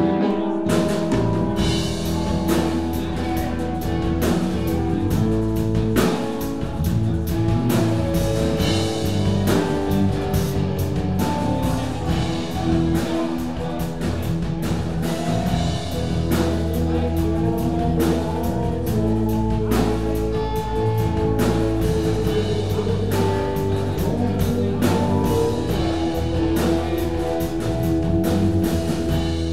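Live rock band jamming: drum kit, electric bass, two electric guitars and keyboard playing together in an improvised groove, with the drums coming in right at the start.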